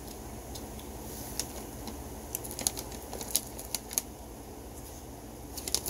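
Mouth noises of chewing a chewy sour candy cube close to the microphone: scattered short clicks and smacks at uneven intervals, over a steady low hum.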